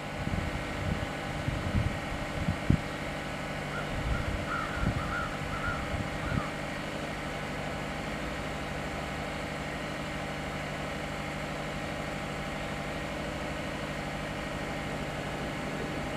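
A steady, even engine drone at one unchanging pitch. Wind buffets the microphone with low thumps over the first six seconds, and a short bird chirping comes in around four to six seconds in.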